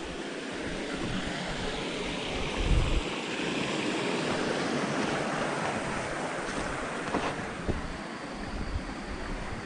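Wind rushing in a gust that swells and then fades over several seconds, with wind buffeting the microphone about three seconds in.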